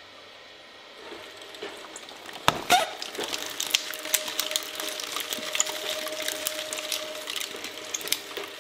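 Twin-shaft shredder's steel cutters chewing up a giant gel-filled glitter stress ball: two loud cracks about two and a half seconds in as the blades bite into it, then continuous wet crackling and splashing as the gel is torn up, over a steady whine from the machine.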